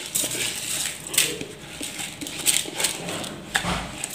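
Washed rice grains poured by hand from one plastic bowl into another, a soft rustling with irregular clicks of the plastic bowls and a dull thump near the end.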